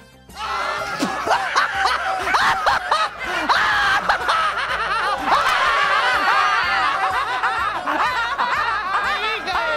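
Several puppet characters' voices laughing together, many overlapping high voices, starting suddenly just after the beginning.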